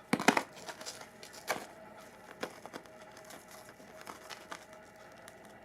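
Scattered small clicks and crinkling as spent, corroded water-heater anode rods are handled, the loudest cluster of clicks just after the start.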